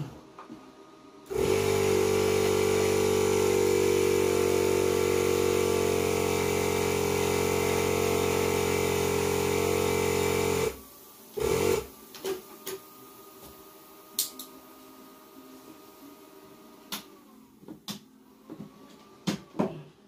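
A small electric air compressor runs steadily at one pitch for about nine seconds. It starts abruptly and cuts off suddenly, most likely inflating the freshly patched tubeless tire. Afterwards come a few light clicks and taps of handling.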